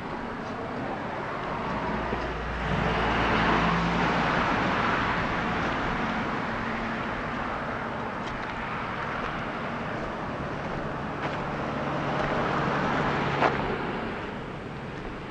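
Two motor vehicles pass one after the other, each a swell of engine hum and tyre noise, the first from about two and a half seconds in and the second toward the end. Beneath them is a steady rushing wash of wind and surf, and near the end there is a single short click.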